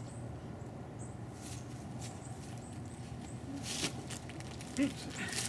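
Scuffling and rustling as a capybara rears up against a crouching man's shirt and shoulder, with a short rising sound near the end and faint high chirps in the background.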